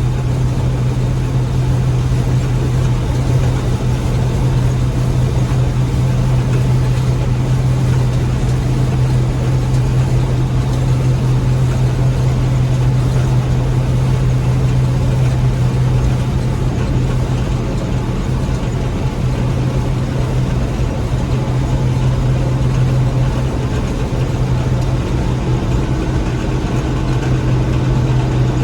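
Gleaner M3 combine running steadily while harvesting wheat: a constant engine drone with a strong low hum, mixed with the steady noise of the threshing machinery.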